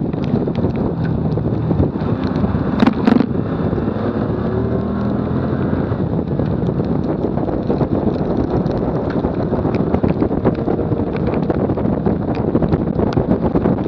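Wind buffeting the microphone of a bumper-mounted camera on a car at track speed, over steady road and tyre noise. A couple of sharp knocks come about three seconds in.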